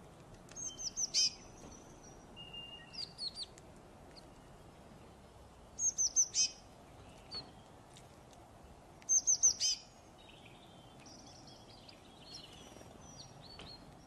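Small songbirds singing: three loud, high phrases, each a quick run of about four falling notes, about a second in, midway and at about nine seconds. Softer chirps and twitters come between them and near the end.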